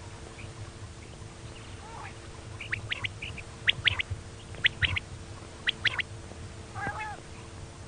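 Female common quail calling: short, sharp high notes in twos and threes about a second apart, then a harsher, rougher call near the end. A faint steady hum runs underneath.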